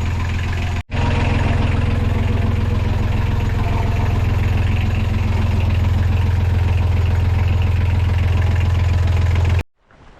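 Boat's inboard diesel engine running steadily at idle with an even low pulsing rumble, just after a new water-separator fuel filter has been fitted. It drops out for an instant about a second in and stops abruptly near the end.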